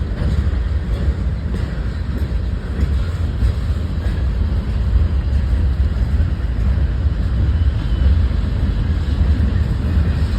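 Freight train rolling past, a steady low rumble from the passing cars.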